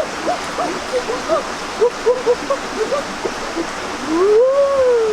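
Many short, quick rising-and-falling animal calls, several a second, over a steady rushing of water; about four seconds in, one longer call rises and falls in pitch.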